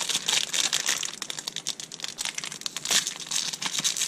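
Small plastic accessory bag being crinkled and opened by hand: irregular crackling with a sharper crackle about three seconds in.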